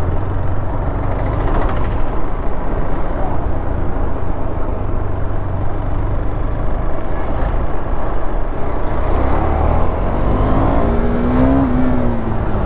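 A vehicle engine running, with a steady low rumble and wind-like rush. About ten seconds in, a pitched engine note rises and falls.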